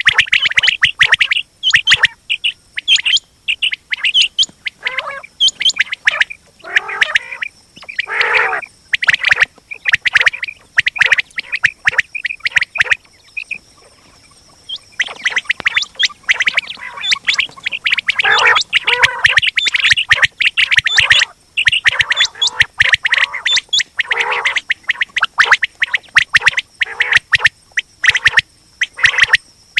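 Quail calling over and over in dense runs of rapid chirps, with a short lull about halfway through.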